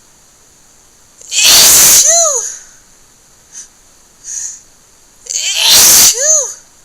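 A person sneezing wetly, twice, about four seconds apart, each sneeze very loud and ending in a voiced cry that rises and falls in pitch. Two short breaths come between them.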